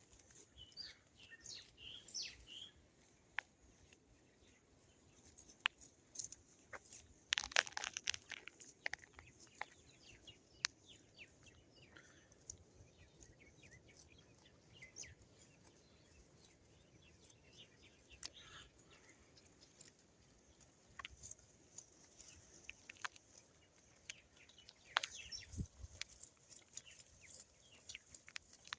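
Faint scattered bird chirps and calls, with a few short clicks in between.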